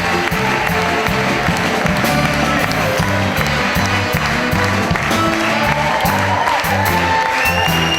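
Live band music with a stepping bass line and a steady drum beat, with audience applause mixed in.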